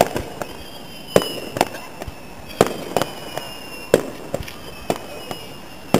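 Aerial fireworks shells bursting: about ten sharp bangs at uneven intervals, some coming in close pairs.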